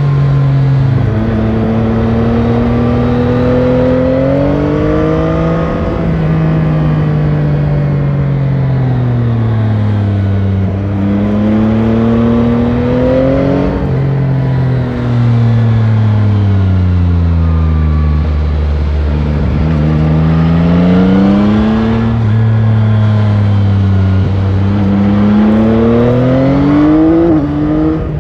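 Yamaha Tracer 9 GT's stock CP3 890 cc three-cylinder engine heard from the rider's seat, pulling through the gears and rolling off several times. The pitch climbs steadily, holds, then falls away, with a deep low note under slow running about two-thirds of the way through and a sharp drop near the end.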